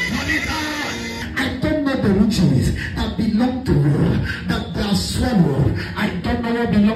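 A voice praying aloud loudly and rapidly in syllables that are not recognisable words, as in speaking in tongues, with sharp percussive consonants. Held notes of background music sound under it for about the first second.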